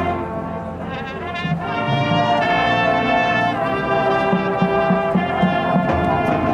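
Marching band brass section playing sustained chords that dip and then swell back up, with drums beneath.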